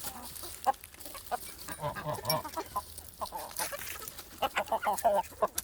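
Chickens clucking: short, repeated clucks that come in clusters, busiest about two seconds in and again near the end.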